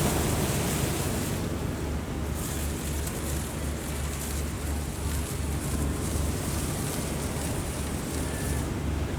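Strong wind buffeting the microphone over rough sea, with a steady low drone of a ship's engine underneath. The wind hiss rises and falls in gusts, easing briefly about two seconds in.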